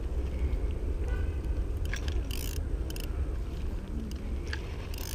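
Steady low rumble of wind on an outdoor microphone, with two brief scratchy hissing sounds, one about two and a half seconds in and one near the end, and faint distant voices.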